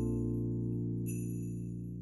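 Slow background music of sustained, ringing chords that slowly fade, with a new high note struck about a second in.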